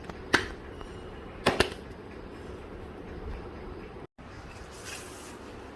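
Three sharp knocks, one just after the start and two close together about a second later, over steady low background noise, with a short hiss near the end.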